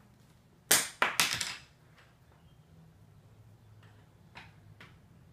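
A pencil clattering onto a hardwood floor: a sharp first hit and three quicker bounces within about a second, then a few faint taps near the end.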